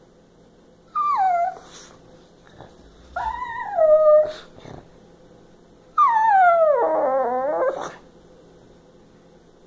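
Small pug-type dog making three whining howls, each sliding down in pitch: a short one about a second in, a longer one around three seconds, and the longest, wavering as it falls, about six seconds in.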